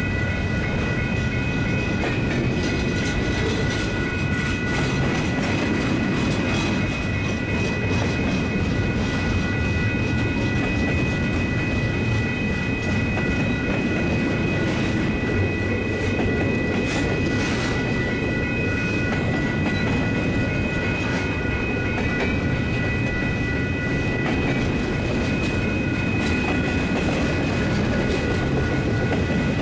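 Double-stack intermodal freight train's loaded well cars rolling past: a steady rumble of steel wheels on rail with irregular clicking and clatter, and a steady high whine throughout.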